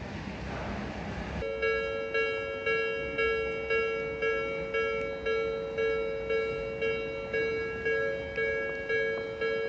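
Japanese railway level-crossing alarm starting about a second and a half in: an electronic bell clanging about twice a second, each strike dying away, over steady background noise. It signals that the crossing gates are closing for an approaching train.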